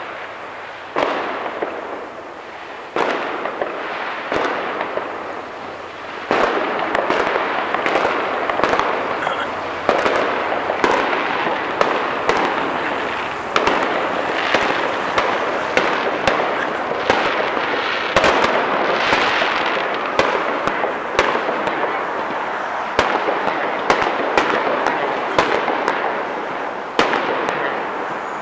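Aerial fireworks going off: sharp bangs every second or two over a continuous crackle.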